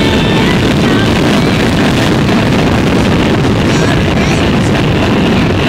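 Enduro motorcycle engine running under way on a dirt track, with heavy wind buffeting on the camera's microphone. The sound is loud and steady.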